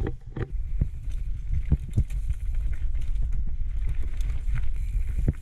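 Downhill mountain bike rattling over a rough trail: a steady low rumble of tyres on rock and roots, broken by clicks and knocks from the bike, with more knocks near the end before the rumble drops away suddenly. Wind buffets the microphone.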